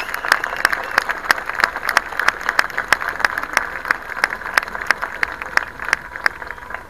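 A crowd applauding, with many sharp individual claps standing out from the general clapping, dying down toward the end.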